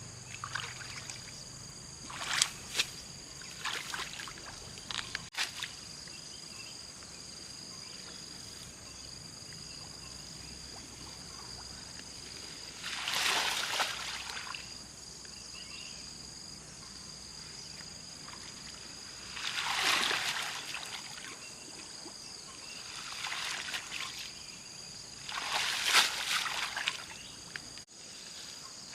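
Water splashing and sloshing in half a dozen short bouts of about a second each, over a steady outdoor background with a few continuous high-pitched tones.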